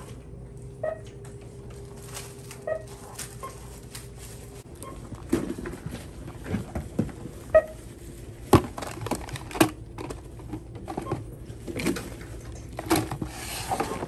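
Retail checkout with a barcode scanner beeping a few short times as items are scanned. From about a third of the way in, items clatter and knock as they are handled and bagged at the counter.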